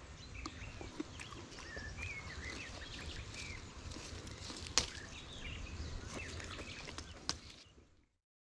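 Small birds chirping faintly in the surrounding trees, with light rustling and a few sharp clicks as the mulberry branches are handled, the loudest click about five seconds in. The sound fades out to silence near the end.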